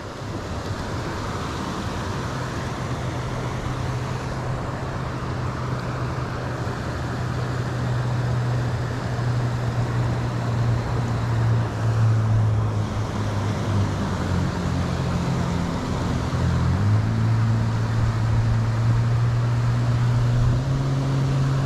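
Steady motor-vehicle noise: a low engine hum that shifts in pitch a few times over a continuous hiss of traffic.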